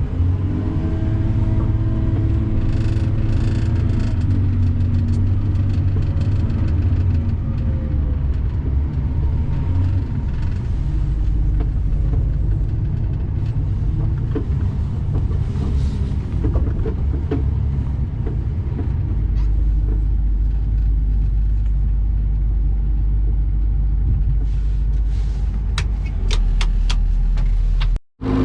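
Truck engine running with a steady low rumble, its pitch rising and falling a little in the first few seconds. A few light clicks come near the end, then the sound cuts out for a moment.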